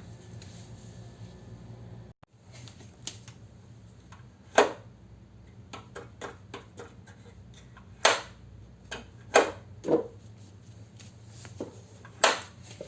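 Irregular sharp knocks and clicks: about five loud ones with lighter ticks between them, over a low steady hum.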